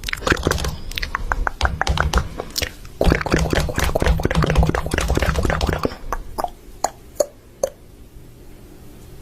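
Close, crunchy chewing: dense clicks and crackles for about six seconds, then a few separate clicks before it goes quiet.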